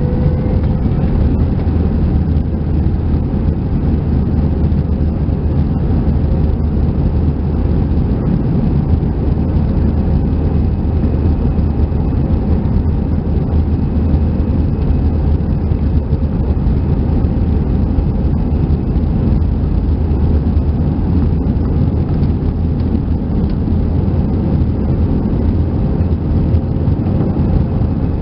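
Airbus A319 jet engines at takeoff power, heard from inside the cabin during the takeoff roll: a loud, steady rush of engine and runway noise with a deep rumble. A faint whine climbs in pitch in the first second as the engines spool up, then holds steady.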